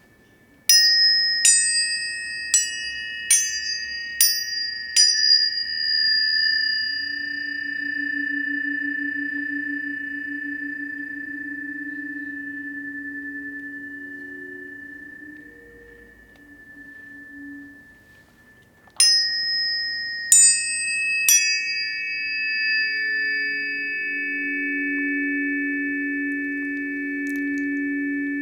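Tuning forks struck in quick succession, each strike a sharp tap followed by a long, steady ringing tone. About six strikes come in the first five seconds and three more near the twenty-second mark. Lower, steady tones swell and fade between and after the strikes.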